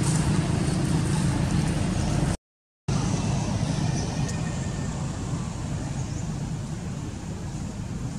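Steady low outdoor rumble, broken by a complete dropout of about half a second a little over two seconds in, then continuing a little quieter.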